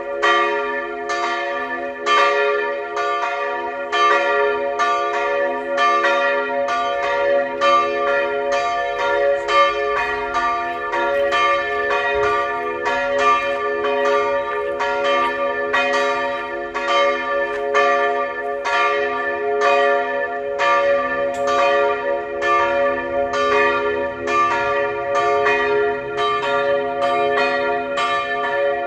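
Two church bells, tuned to b' and d'', swinging together in a full peal: a steady stream of overlapping strokes, each tone ringing on under the next. It is the joint ringing of both bells that calls the parish to Mass.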